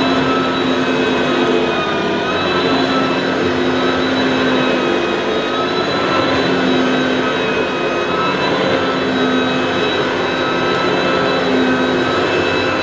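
Kärcher Ranger upright vacuum cleaner (Sebo-built), powered through a step-down transformer, running steadily: a continuous motor rush with a whine that wavers slightly in pitch as it is used.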